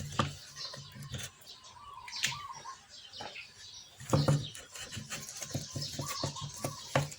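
Sandpaper rubbed by hand over a motorcycle engine side cover in quick back-and-forth strokes, about two or three a second, scuffing the old paint before it is repainted. Birds chirp in the background.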